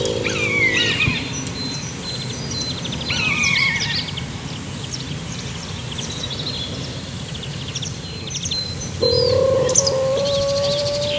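Songbirds chirping and trilling over a steady low rumble. About nine seconds in, a steady droning tone starts and becomes the loudest sound.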